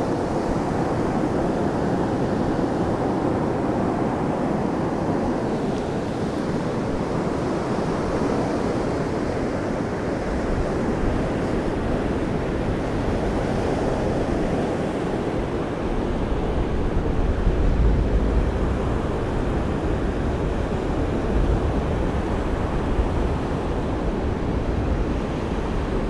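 Storm surf of the Black Sea washing up a sandy beach: a steady hiss and wash of breaking waves and foam running over the sand. In the second half, gusts of wind on the microphone add a low rumble.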